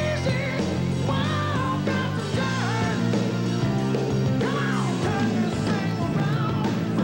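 Rock music with a singing voice over a steady backing.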